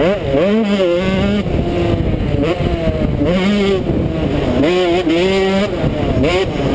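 KTM 125 SX two-stroke single-cylinder motocross engine running hard, its pitch climbing and dropping over and over as the throttle is worked and the gears are shifted, heard from a helmet-mounted camera.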